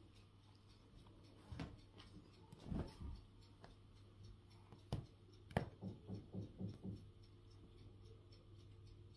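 Soft scuffs, taps and rustles of a cat rolling and pawing on a fabric sofa, with a quick run of about six soft thumps a little past the middle. A faint steady low hum sits underneath.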